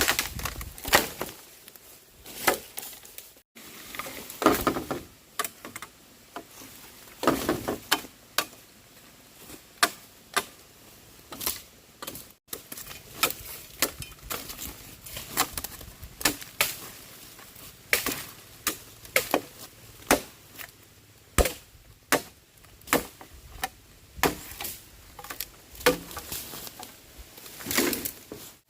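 An irregular series of sharp knocks or chops, about one every second, a few of them followed by a brief rustle.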